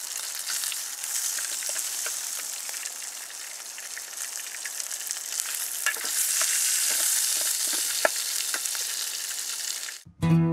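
Bacon rashers frying in a hot aluminium army mess tin: a steady high sizzle with scattered sharp crackles, growing louder about six seconds in. Near the end it cuts off abruptly and acoustic guitar music begins.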